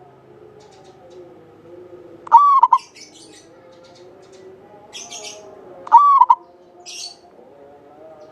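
Zebra dove (perkutut) cooing: two short phrases of quick, ringing coos about three and a half seconds apart. Faint high chirps are heard between them.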